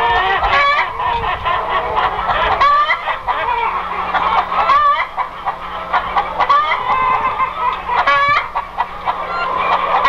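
Farmyard fowl calling over one another, mostly clucking, with a louder call standing out every two to three seconds.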